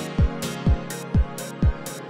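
Upbeat electronic background music with a steady kick drum about twice a second and crisp high hits between the beats.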